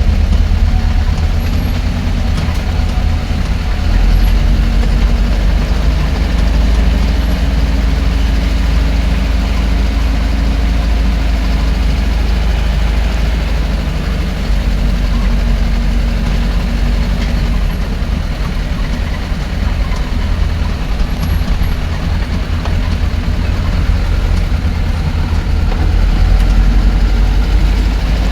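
Heavy vehicle engine running loudly and steadily with a deep rumble, its pitch shifting slightly as the revs change.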